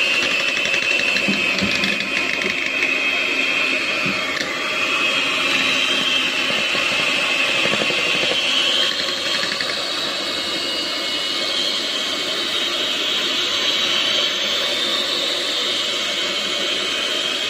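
Miyako electric hand mixer running steadily, its beaters whipping buttercream in a metal pot. The motor gives a constant whine that drifts slightly in pitch.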